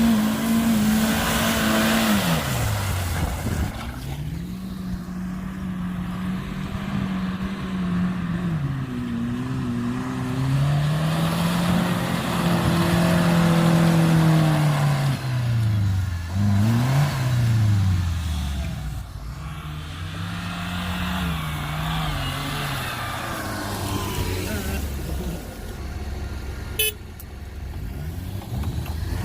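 Off-road 4x4's engine revving up and dropping back again and again in long swells, working the vehicle through the terrain. A single sharp click near the end.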